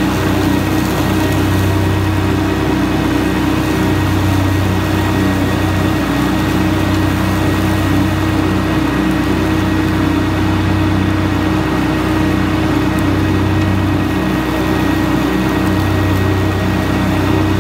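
Kubota compact tractor's diesel engine running steadily while pulling a Land Pride finish mower across a lawn, with a constant hum from the engine and mower drive.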